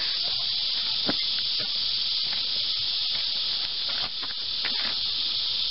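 Steady high-pitched insect chorus, a continuous even buzz, with a few faint knocks.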